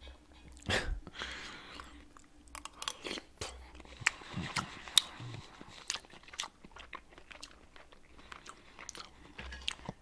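A person chewing a spoonful of soft meatball in tomato sauce close to the microphone, with scattered short mouth clicks and smacks.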